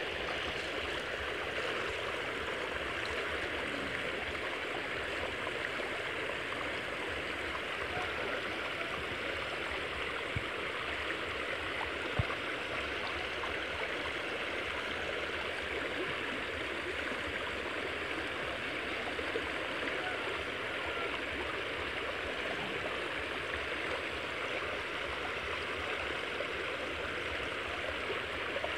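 Shallow creek water rushing steadily, with a single brief sharp click about twelve seconds in.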